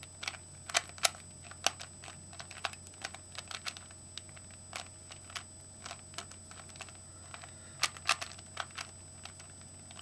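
Rubik's Cube being scrambled: irregular plastic clicks as its layers are twisted, some of them sharp and loud.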